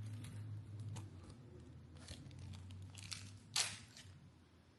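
Crinkling and tearing of the packaging of a clock-hand kit as it is handled, a series of short crackles with one sharp, louder crackle about three and a half seconds in.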